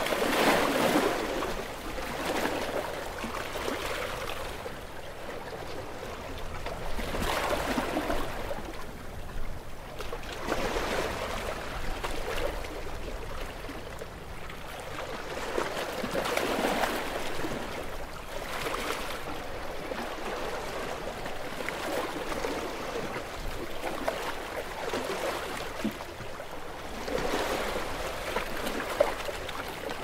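Small ocean waves lapping and sloshing, swelling and easing every few seconds, with a brief sharp click near the end.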